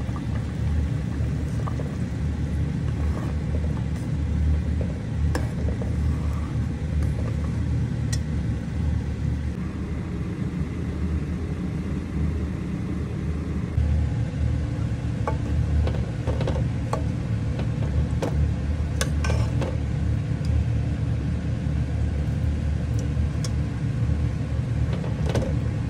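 A steady low rumble with a few light clicks and taps scattered through it, several close together about nineteen seconds in.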